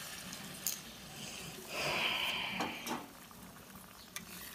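Water poured from a steel bowl into a kadai of hot frying spice paste; the sizzling dies away, with a louder hiss about two seconds in and a few clicks of metal against the pan.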